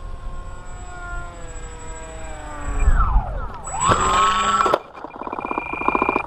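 Electric motor and propeller of a foam RC F-16 park jet whining in several tones that drift in pitch as it makes a low landing pass. The pitch falls sharply about three seconds in, then a loud surge with rising pitch cuts off suddenly just before five seconds. A fast run of clicks and a short high beep follow.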